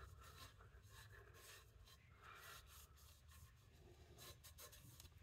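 Near silence, with faint scattered scratchy rubbing and handling noises from hand work, such as wiping.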